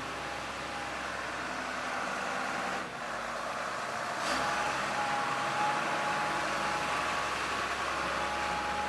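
Diesel engine of a 10-ton UN forklift running as the truck drives, with a steady thin whine over it. It grows louder a little after four seconds in.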